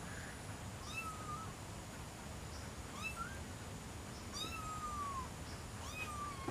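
Kitten meowing: four high mews spread over a few seconds, the third one longer and sliding down in pitch.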